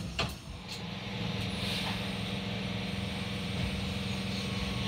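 Class 323 electric multiple unit starting to pull away from a station platform. A few sharp clicks come at the start, then a steady low traction hum sets in about a second in and grows slightly louder.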